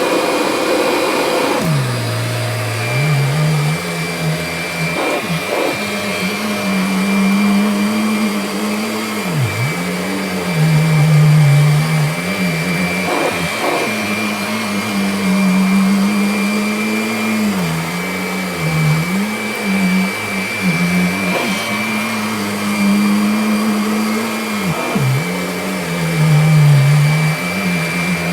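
Kirby Diamond Edition upright vacuum cleaner running continuously while vacuuming a rug, with a steady high whine over its motor hum. The hum dips briefly in pitch and comes back up several times.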